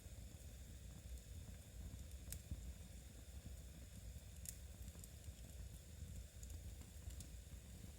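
Faint crackle and hiss of a wood fire in a fireplace over a steady low rumble, with three short sharp clicks spread through.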